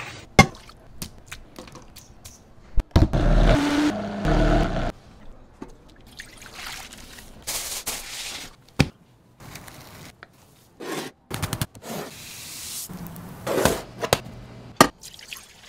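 A run of short kitchen food-preparation sounds: sharp taps and clicks of utensils and tins, with a louder continuous stretch about three seconds in. Around the middle comes aluminium foil crinkling in the hands, and there are brief scraping and pouring sounds.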